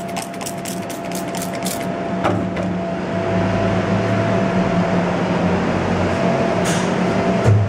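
Trigger spray bottle squirting fluorescent liquid penetrant onto a pistol barrel. There is a quick run of about eight short sprays, roughly four a second, over the first two seconds, then one more near the end, over a steady background hum.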